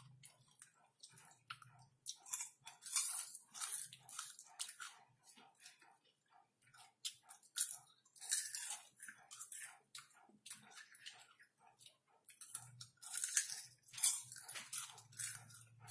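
Caramel popcorn being crunched and chewed close to the microphone, in runs of quick, crisp bites separated by short pauses.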